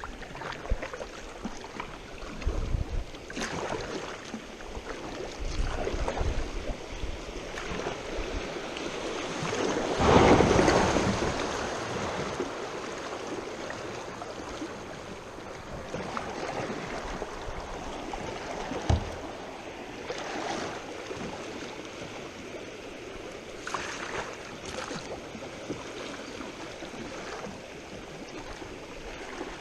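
River water rushing and splashing around a kayak, with scattered splashes and a louder surge of water about ten seconds in. Wind buffets the microphone in the first several seconds.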